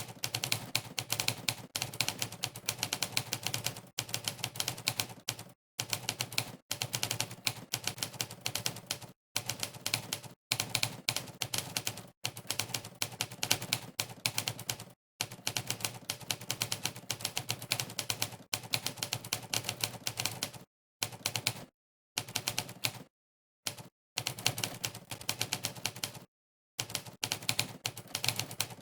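Monkeytype's simulated typewriter keypress sound, one clack for each keystroke of fast typing. The clacks come in rapid runs a few seconds long, broken by brief pauses of complete silence between bursts of words.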